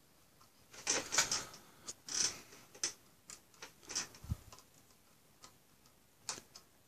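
Irregular light clicks and ticks of a plastic drive caddy and its small metal parts being handled and fitted together, with a cluster of clicks about one to three seconds in and a soft low knock just after four seconds.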